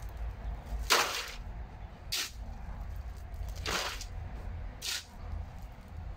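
Steel shovel driven into a gravel pile and its load tipped into a metal wheelbarrow: four short gritty scrapes, one every second or so.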